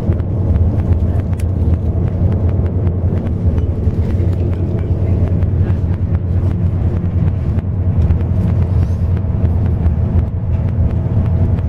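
Intercity bus under way, heard from inside the cabin: a steady low engine drone with road noise and many light rattles and clicks.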